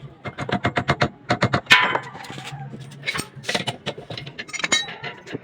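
Rapid sharp metallic taps and clinks: a quick run of about ten knocks, one louder ringing strike just under two seconds in, then scattered knocks, typical of metal parts being struck or handled during assembly.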